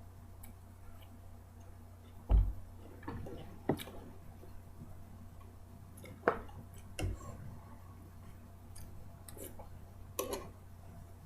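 Someone eating cereal: a spoon clicking against the bowl and bits of chewing, heard as scattered clicks and knocks over a steady low hum, with the two heaviest knocks about two and seven seconds in.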